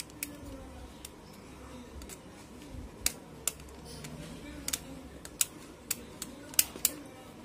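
Utility-knife blade scraping a solder joint and copper pad on a circuit board: a dozen or so sharp, irregular scratchy clicks. The joint has gone dry and arced, and is being scraped clean so it will take fresh solder and not go dry again.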